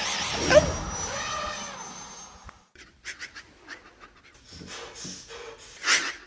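A rushing noise with a thin, steady high whine fades away over the first two and a half seconds. After it come a man's short, quiet panting whimpers, with a louder one near the end.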